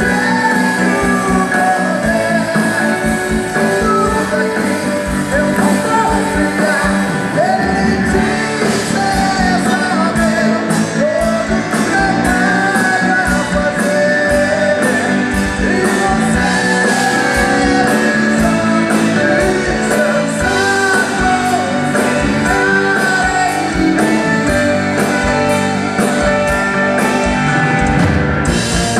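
Live band playing loud music, with a man singing lead into a microphone over guitar and drums.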